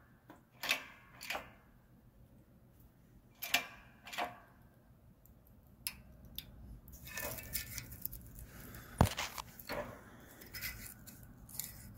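Scattered metal clicks and clinks of water pump parts and hand tools being handled while the impeller is pressed onto the pump shaft and its clearance checked. A single sharp click about nine seconds in is the loudest.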